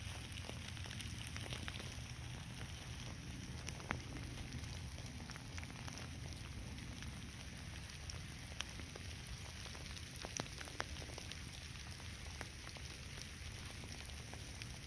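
Light rain falling: a faint steady hiss with scattered ticks of single drops, over a low steady rumble.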